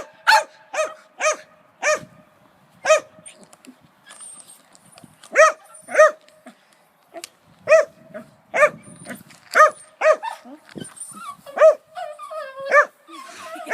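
A dog barking repeatedly: about fourteen short, high-pitched barks at an uneven pace, with a pause of about two seconds early on.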